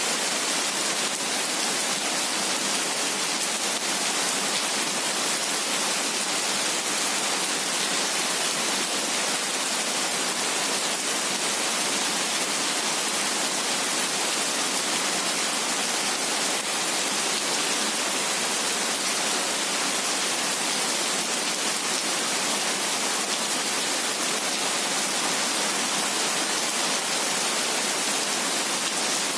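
Heavy rain falling steadily: an even, high-pitched hiss that does not let up.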